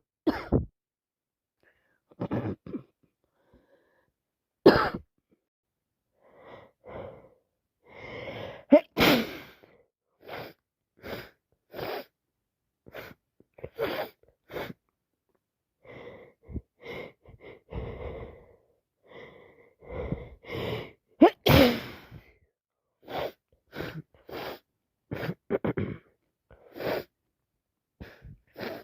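A woman with a heavy head cold sneezing several wet sneezes, with sniffing and snuffly breaths through a congested nose between them. The sounds come in short separate bursts, the loudest sneezes near the start, about 5 and 9 seconds in, and about two-thirds of the way through.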